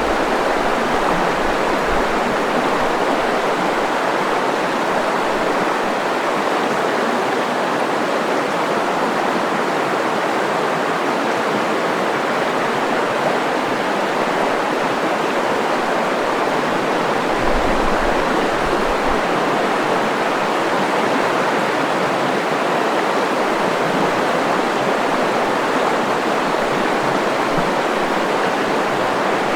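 River water rushing steadily, a dense, even flow noise of the Nizhnyaya Luvenga.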